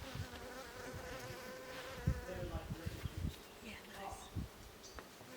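Insects buzzing close by, a steady droning hum, with a few short low thumps around two to three seconds in.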